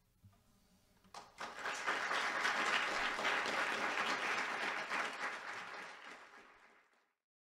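Audience applauding at the end of a classical guitar piece, starting about a second in, slowly thinning, then cutting off suddenly near the end.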